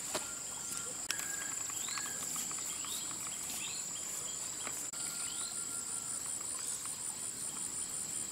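Steady high-pitched insect drone, with a bird giving short rising calls over it about once a second.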